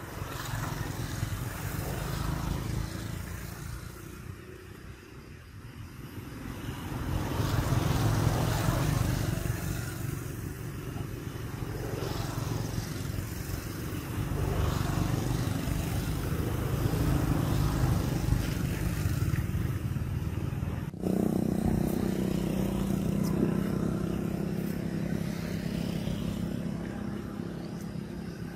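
Motor engines running, the low rumble swelling and fading as vehicles go by. After a sudden change about three-quarters of the way in, a steady engine hum.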